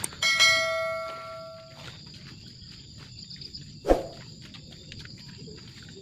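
A single bell-like metallic ring starts suddenly just after the start and fades away over about a second and a half. Steady high insect chirring runs underneath, and there is a short dull thump about four seconds in.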